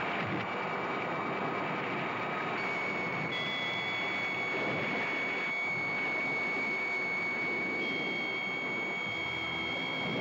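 Film soundtrack storm: a steady roar of wind and rough sea, with several high held tones coming and going over it.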